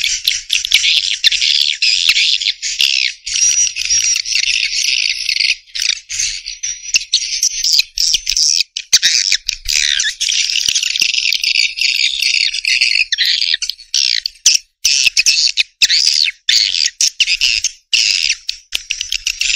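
Dense, continuous twittering and chattering of many edible-nest swiftlets, a swiftlet-house lure call, broken by brief gaps and many sharp clicks.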